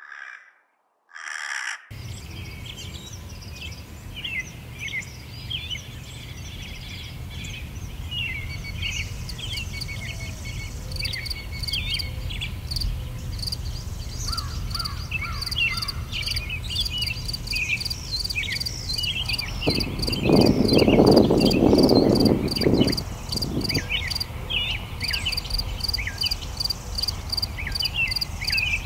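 Two short harsh calls near the start, fitting a hooded crow cawing, then a busy spring chorus of small songbirds chirping over a steady low rumble. A rapid, high repeated note runs through the second half, and a louder rushing noise rises for about three seconds around two-thirds of the way in.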